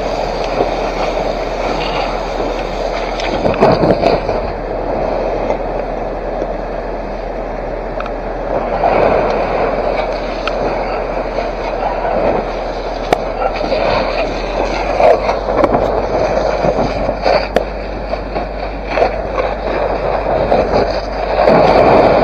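Fire hose jet spraying water onto a burning rubbish pile: a steady rushing hiss with scattered crackles and pops.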